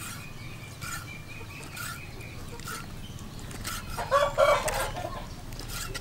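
Chickens clucking, with one loud chicken call about four seconds in, and a row of short high chirps in the first two seconds. A kitchen knife cuts through pig intestines onto a wooden chopping board about once a second.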